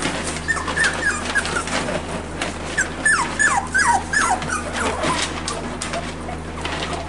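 4½-week-old cockapoo puppies whimpering: short, high, falling squeaks in two bunches, the second near the middle and the busiest, with scattered light clicks.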